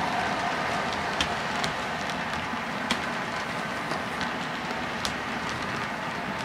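Model railroad freight cars rolling along the layout track: a steady rolling rumble of small wheels on rail, with scattered sharp clicks as the wheels pass over the track.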